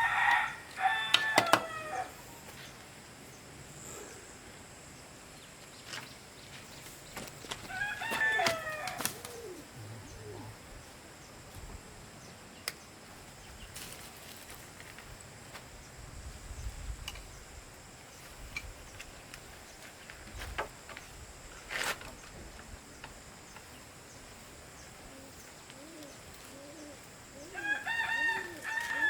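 Rooster crowing three times, at the start, about eight seconds in and near the end, with a few sharp clicks or knocks in between.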